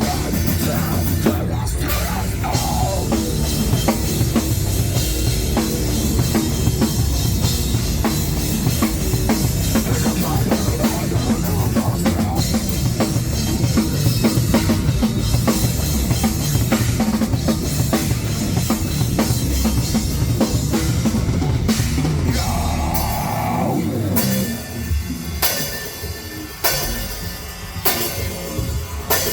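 Rock band playing loud, led by a hard-hit drum kit with cymbals under a dense wash of amplified instruments. About 23 seconds in, the low end drops out and the band switches to stop-start hits.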